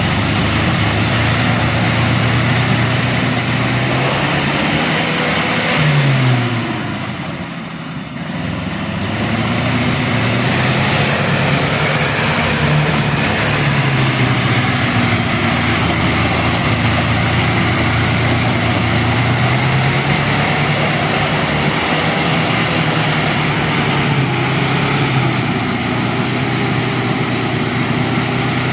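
A motor vehicle's engine running, its pitch rising and falling again and again as it is revved. It eases off briefly about seven seconds in.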